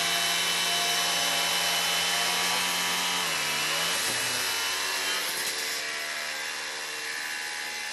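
Cordless angle grinders cutting through steel rebar under a hanging load: a steady motor whine over a grinding hiss. About three seconds in the pitch of one drops, and the sound slowly thins as the grinders finish their cuts.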